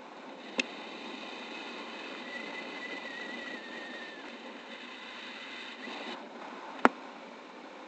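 Steady rush of airflow over an action camera's microphone in paraglider flight, with two sharp clicks, one about half a second in and one near the end. A faint high wavering tone sounds through the middle and cuts off suddenly about six seconds in.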